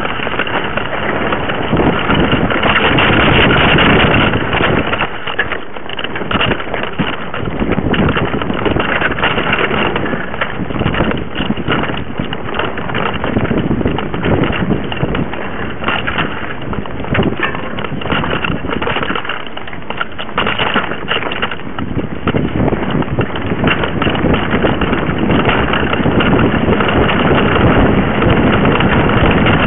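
Wind buffeting a bike-mounted camera's microphone while a mountain bike rides a dirt trail, with steady tyre noise and frequent short rattles and knocks from the bike over bumps.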